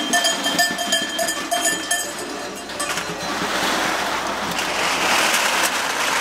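Long strings of tin cans dragged over asphalt, a dense metallic rattling and scraping that swells and grows fuller from about three seconds in. In the first two seconds a few steady ringing tones sound over the clatter.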